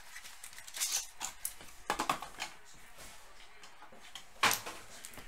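Cardboard trading-card box being opened and a foil-wrapped pack handled: a few brief rustles and crinkles, the sharpest about four and a half seconds in.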